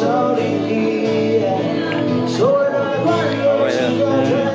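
Music with a male voice singing over guitar-like accompaniment.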